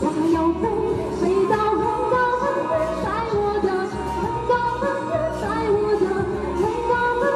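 A woman singing a Chinese pop song live into a handheld microphone, over backing music.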